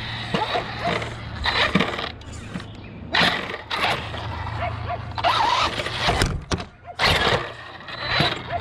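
Arrma Outcast 6S electric RC truck driving in short repeated bursts: its motor and tyres are heard as about five loud surges of noise, each under a second long, as it is punched on and off.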